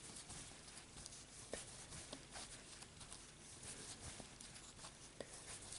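Faint rustling of yarn and a few soft, scattered clicks from a crochet hook working single crochet stitches, over quiet room tone.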